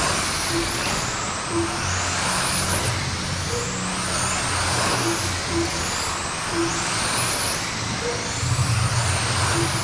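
Several radio-controlled sprint cars racing on a dirt oval: a high motor whine that rises and falls over and over as the cars speed up and slow, over a steady hiss of tyres on dirt.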